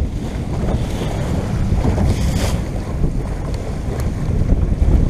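Wind buffeting the microphone at the bow of a small motorboat under way, with water rushing and splashing along the hull, in a steady, loud rumble.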